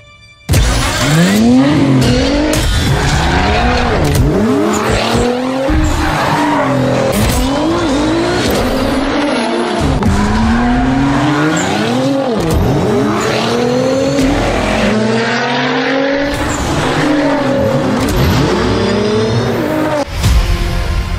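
Nissan Z's 3.0-litre twin-turbocharged V6 firing up right after the start button is pressed, then revving hard through the gears, its pitch climbing and dropping back over and over.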